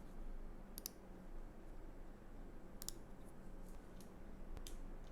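Keychron K3 low-profile mechanical keyboard with brown optical switches being typed on: a few soft, separate key clicks, about six in all.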